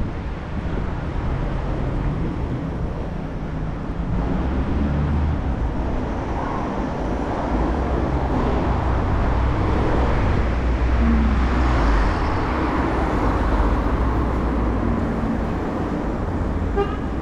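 Riding noise from a bicycle on an asphalt street: a steady low rumble of wind on the microphone and tyres on the road, with car traffic passing. The noise swells a little through the middle.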